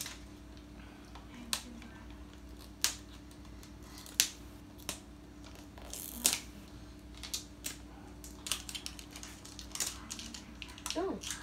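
Scissors snipping at the wrapping of a toy surprise ball, in short, sharp separate snips spread irregularly a second or so apart.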